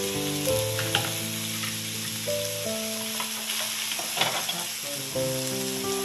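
Sausages and chicken sizzling and frying on an electric raclette grill plate, a steady hiss with a few light clicks. Soft background music with held notes plays along, fading back around the middle.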